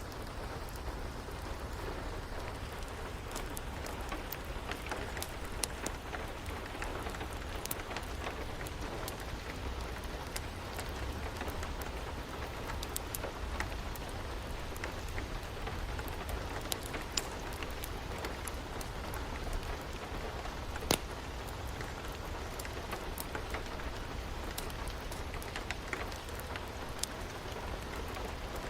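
Steady rain with scattered sharp crackles and pops from a wood fire, one louder pop about two-thirds of the way through.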